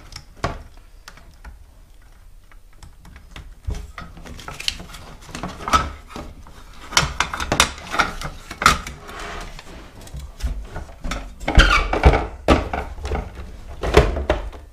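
Clicks, knocks and rattles of plastic and metal parts as a mobility scooter is put back together after a control box swap. The louder knocks in the second half come as its plastic body shell is set back onto the chassis.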